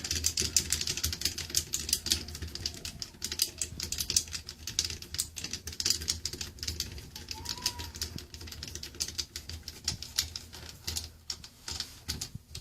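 Screws of a shower valve trim plate being tightened against the wall: rapid, irregular clicking and rattling that goes on throughout.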